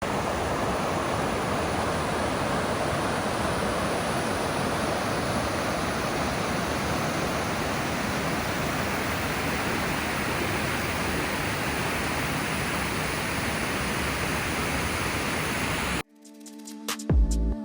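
Water of the High Falls waterfall rushing in a steady, unbroken roar. It cuts off suddenly near the end, and music comes in.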